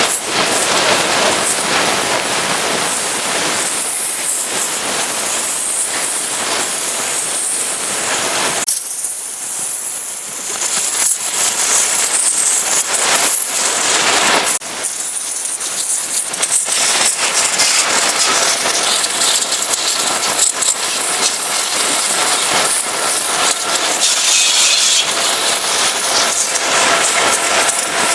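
Pressure washer spraying water at high pressure onto a truck, a loud steady hiss with the sound changing abruptly a couple of times.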